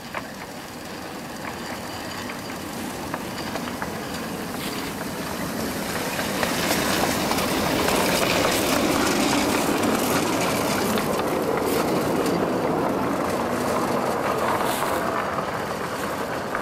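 Home-built, wood-fired 1/3-scale live steam Shay locomotive on 12-inch gauge track running past with its train. It grows louder as it passes, about halfway through, then fades as it moves off. A few sharp clicks come through over the rumble.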